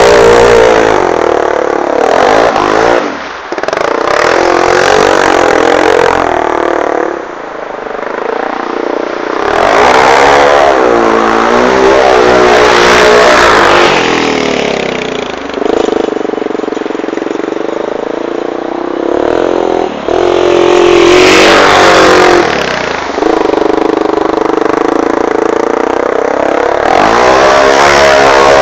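Honda 400EX sport quad's single-cylinder four-stroke engine being ridden hard: it revs up and falls back again and again, with short throttle-off dips and spells held at steady revs.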